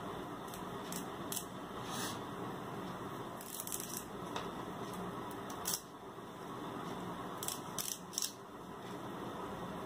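Curry leaves being plucked off their stems by hand: leaves rustling and stems snapping in irregular sharp clicks, over a steady background hiss.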